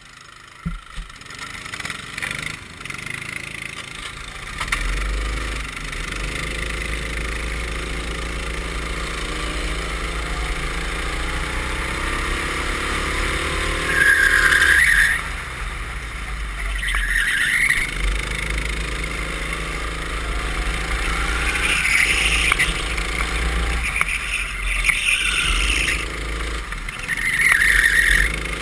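Go-kart engine heard from on board, pulling away and accelerating with its pitch climbing steadily, then rising and falling with the throttle through the corners. There are several short louder bursts along the way.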